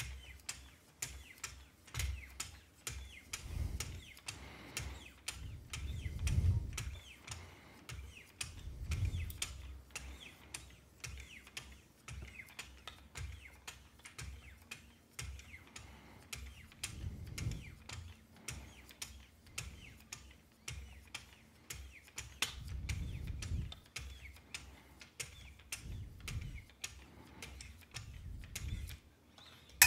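Wicked Edge guided sharpener's 12-micron lapping film paddles stroked along the blade of a Benchmade Mini Reflex II, making a quick, steady run of light ticks, a few a second. A few soft low bumps come from the paddles being handled. The edge is being polished toward a mirror finish.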